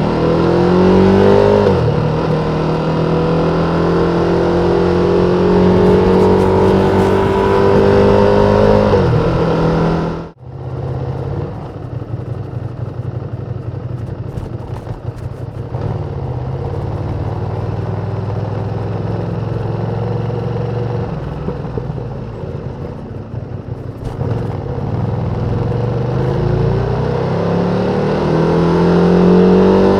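Ducati Panigale V2's 955 cc L-twin engine on stock exhaust, ridden under load: the pitch climbs as it accelerates, holds high for several seconds, then falls. After a brief break about ten seconds in it runs at a lower steady note, and climbs again near the end.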